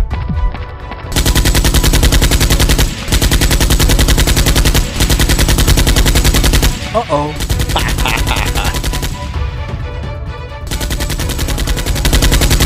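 Dubbed-in machine-gun sound effects: several long bursts of rapid automatic fire starting about a second in, a quieter stretch after the middle, then another burst near the end.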